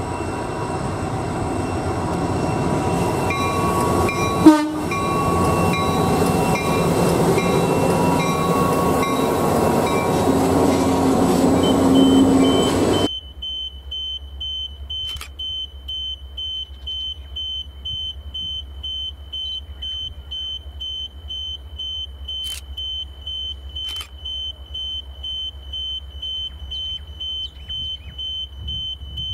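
Loud train noise with several steady tones and a sharp bang about four and a half seconds in, cutting off suddenly about thirteen seconds in. Then a level crossing warning bell rings in an even, rapid pulse on one high tone while the crossing lights flash for an approaching train.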